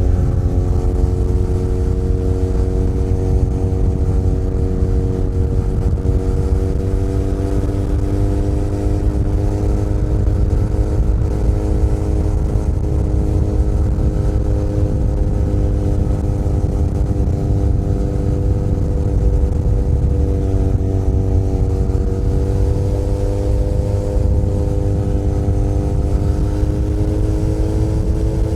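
Benelli Leoncino 500 Trail's parallel-twin engine running at steady cruising revs, its pitch easing slightly early on, holding, then rising gently near the end as the rider opens the throttle. A heavy low rumble of wind and road lies beneath it.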